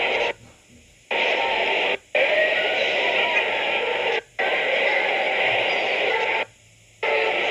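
Steady, muffled crowd murmur of a show hall, hissy and thin as heard from old video through a screen's speaker, cutting out abruptly to silence four times.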